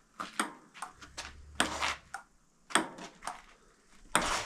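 Table tennis rally: the celluloid ball clicks sharply off the paddles and the table, a click every third to half second. Two longer noisy sounds come in between, one after about a second and a half and a louder one near the end.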